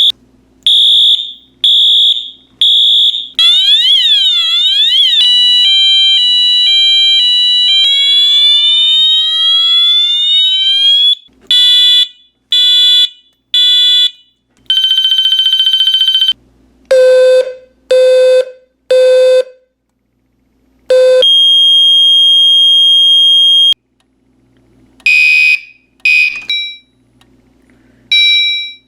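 Fire alarm horns and sirens from a collection of notification appliances, sounding one after another, each in a different tone. A horn pulses about once a second, a siren sweeps down and up, then comes a two-tone hi-lo, rising whoops, temporal-three blasts in groups of three and a steady tone, with short gaps between devices.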